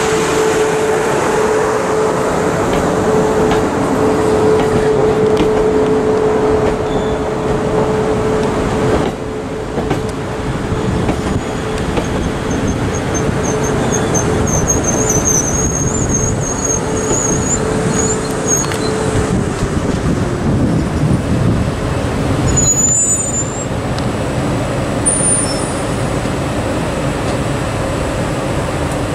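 Siemens Desiro Class 450 electric multiple unit running in and braking to a stop, with a steady rumble and a held motor tone that falls away as the train comes to rest about two-thirds of the way in. A faint, wavering high squeal sounds while it slows.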